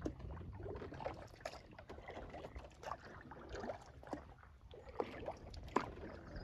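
Wooden kayak being paddled: faint, irregular splashes and drips of the paddle blades dipping into the water, over a low rumble.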